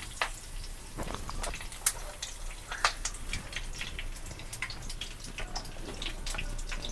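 Mustard seeds, dry red chillies and freshly added curry leaves crackling in hot mustard oil in a wok as a tempering: irregular pops and spits over a faint sizzle.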